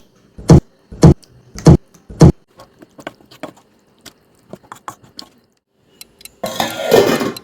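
Five heavy knocks about half a second apart, then scattered light clicks and about a second of rough rustling noise near the end.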